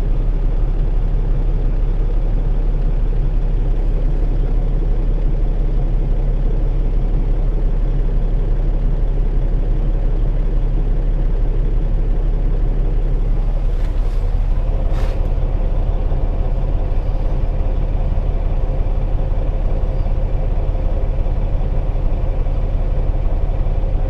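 Loaded grain truck's engine running steadily, heard from inside the cab. A click comes about 15 seconds in, and a steady higher hum joins the engine after it.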